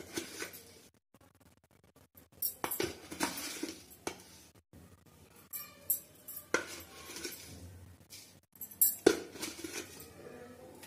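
Stainless-steel pan and steel spoon clinking and knocking as spice powder is tipped into the pan, a few sharp metallic strikes spread a few seconds apart.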